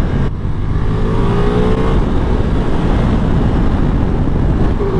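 Onboard sound of a Ducati Multistrada V4 being ridden: heavy wind rumble on the bike-mounted microphone over the V4 engine, whose note rises slowly under acceleration for the first couple of seconds and holds steadier near the end. There is a brief dip in the sound just after the start.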